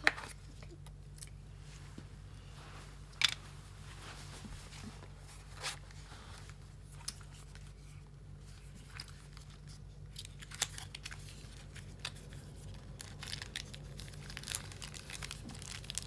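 Cardboard and plastic packaging being handled: a few scattered sharp clicks and scrapes as a small cardboard box is lifted from its tray and its flap opened, then denser crinkling of a plastic bag near the end. A steady low hum runs underneath.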